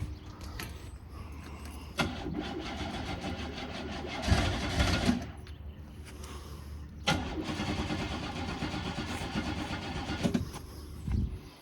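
Car engine cranked by its starter motor twice, about three seconds each time, turning over steadily but not catching after a shot of starting fluid.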